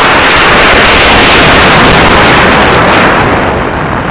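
Loud, steady rushing noise of air blasting over a rocket-mounted action camera in flight, dipping slightly about three and a half seconds in.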